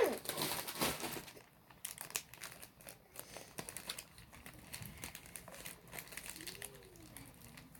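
Plastic packaging crinkling as a packet is handled and opened by hand, a string of faint, irregular crackles.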